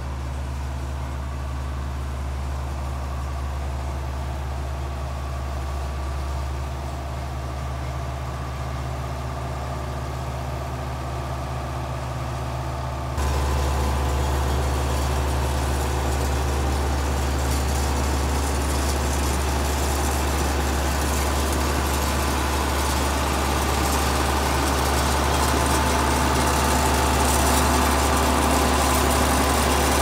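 John Deere 6600 combine's engine running steadily, freshly started. About 13 seconds in it suddenly gets louder and stays so, growing a little louder again near the end as the combine moves past.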